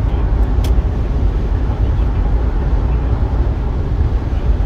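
Car driving at highway speed: steady low road and engine noise, with one faint click less than a second in.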